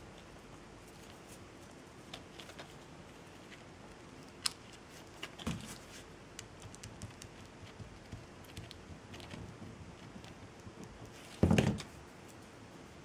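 Scattered small clicks and taps of craft tools being handled on a work surface, with a louder thump near the end.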